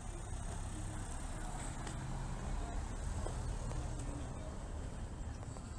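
Outdoor marina ambience: a steady low rumble with faint distant voices.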